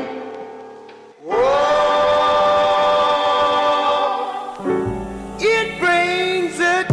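Background music with singing. After a brief dip, a long sung note slides up and is held. About two-thirds of the way through, a low beat comes in under further sung phrases.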